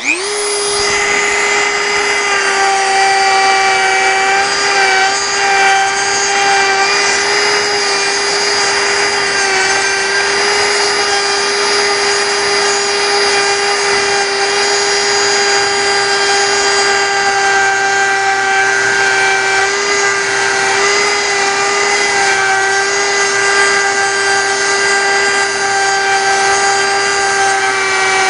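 Handheld rotary tool with a small sanding drum starting up and running at a steady high whine while sanding wood out of a bass guitar's neck pocket to enlarge it.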